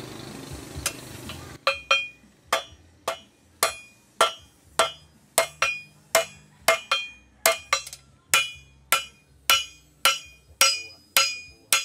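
Red-hot machete steel being forged on an anvil with a hand hammer and a sledgehammer: sharp ringing metal strikes at about two a second. They begin about a second and a half in, after a steady rushing from the charcoal forge fire.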